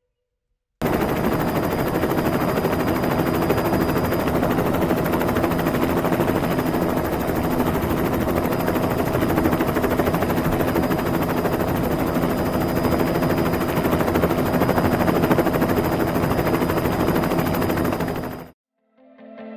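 A loud, dense, rapid rattling noise with a faint steady high tone in it, added as a sound effect. It starts abruptly about a second in and cuts off suddenly near the end.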